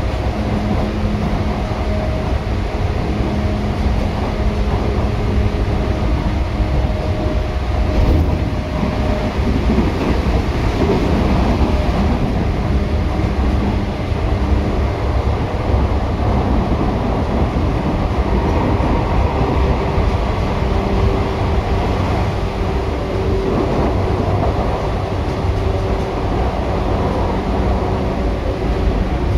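Running noise heard from inside an 8500-series electric train car (8531F, Hitachi traction motors): a steady rumble of wheels on rails under a motor hum whose tones change pitch about ten seconds in and again near twenty seconds.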